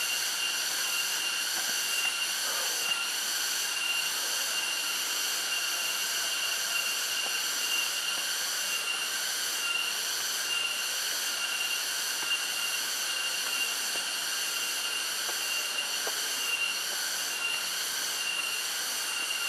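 Insect chorus: a steady high-pitched buzzing with a slow, even pulse.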